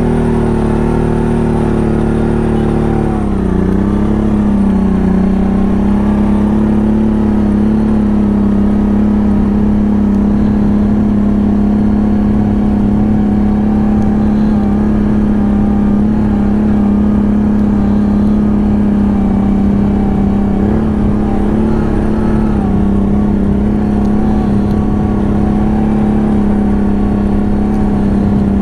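ATV engine running at steady high revs. About three seconds in the revs sag briefly, then pick back up and hold.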